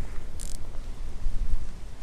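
Wind rumbling on the microphone in uneven gusts, with a brief hiss about half a second in.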